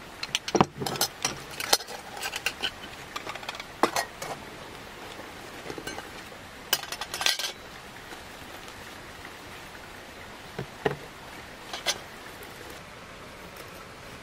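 Stainless pieces of a Vietnamese coffee set clinking and knocking as they are lifted out of a padded pouch and set down. There are many sharp clicks in the first few seconds, a cluster about seven seconds in, and a few near the end.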